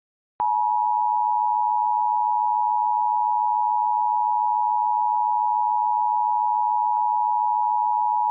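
Steady electronic alert tone at a single high pitch, starting abruptly about half a second in and holding without change.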